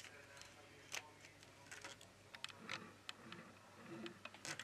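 Faint, irregular clicks and light taps of steel tweezers against the small metal parts of an iPhone 11 display assembly, about a dozen in all, the sharpest near the end.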